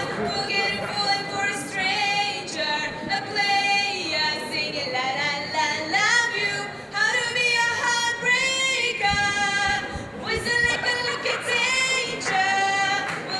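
A woman singing a pop song through a microphone and PA, accompanied by an acoustic guitar. Her voice is the loudest part, with long held notes and sliding phrases.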